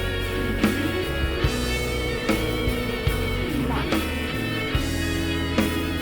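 Instrumental music: guitar over bass and a steady drum beat.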